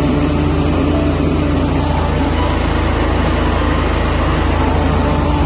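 Twin engines of a truck-mounted high-pressure sewer jetter running steadily while the jet sprays, an even low drone with a steady hiss over it.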